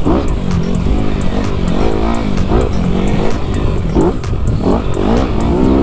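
Honda CRF250RX dirt bike's single-cylinder four-stroke engine being ridden hard, its pitch rising and falling about twice a second as the throttle is worked on and off.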